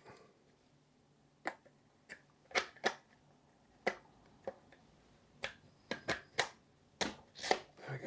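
3D-printed plastic carriage and its sheaths clicking and knocking against a metal jib arm tube as it is worked onto the tube by hand: a series of irregular sharp clicks, coming faster in the second half.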